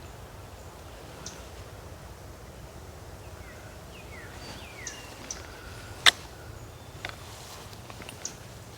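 Quiet outdoor ambience with a few faint, short falling bird chirps a few seconds in and small scattered ticks. A single sharp click about six seconds in is the loudest sound.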